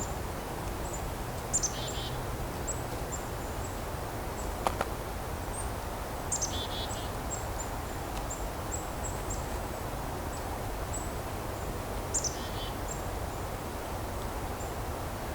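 A small mixed winter flock of songbirds, including black-capped chickadees, calling while it forages: many very high, thin call notes throughout, and three times a call that drops into a short series of lower notes. There is one sharp snap about halfway through.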